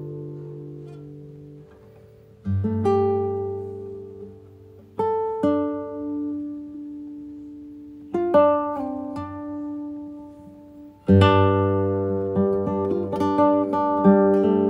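Music: an acoustic guitar playing slow chords, each left to ring and fade before the next, with notes coming closer together in the last few seconds.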